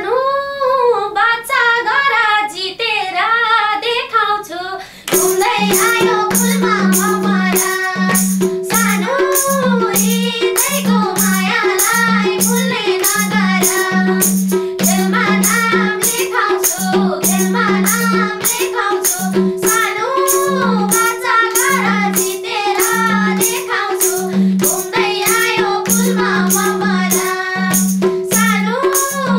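Women singing a Nepali dohori folk song, unaccompanied for about the first five seconds. Then the madal drum and instrumental accompaniment come in with a steady beat under the singing.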